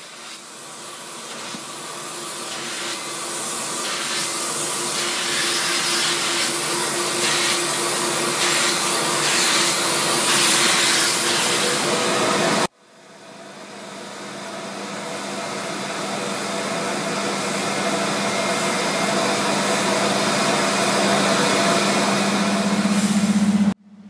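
Upholstery extraction cleaner's vacuum motor running steadily with a hum as the wand works over the sofa fabric. The sound cuts out about halfway and fades back up, then cuts again near the end.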